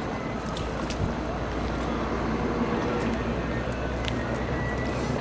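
A boat's engine running steadily, a constant low hum under a wash of noise.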